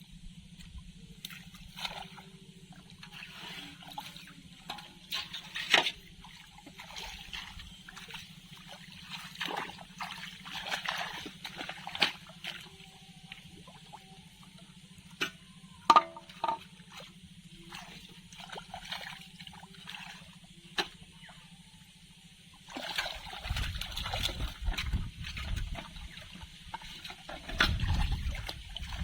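Water sloshing and splashing in short irregular bursts over a faint steady low hum. The sloshing grows heavier and louder about 23 seconds in.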